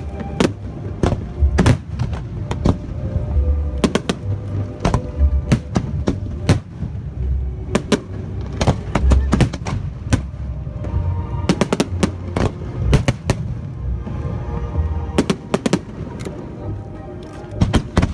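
Aerial fireworks finale: shells bursting in a rapid, irregular string of sharp bangs with deep booms, over music.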